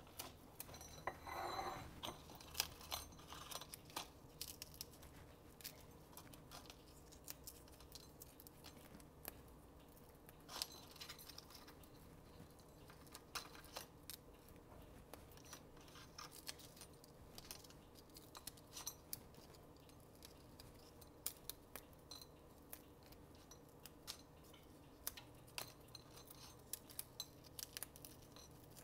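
Crisp-cooked bacon strips being broken and crumbled by hand into a dish: a scattered run of small sharp crackles and snaps.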